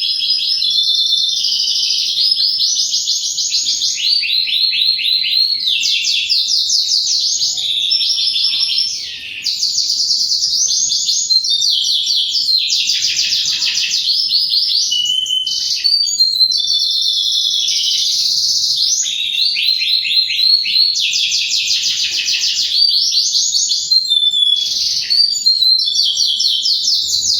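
Domestic canary singing a long, nearly unbroken song of rapid trills and chirps, with one short pause about nine seconds in.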